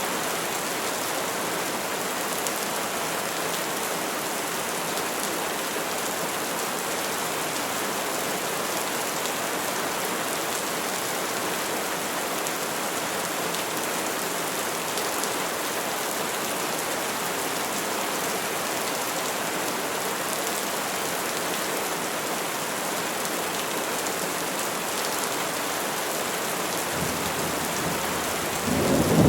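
Steady rain falling on trees, an even dense hiss of drops. Near the end a low rumble of thunder swells in and breaks loudly.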